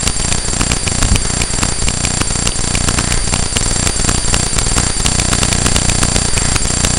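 Electronic buzzing from a fault inside the camera: steady high whining tones with fast, irregular crackling ticks over them.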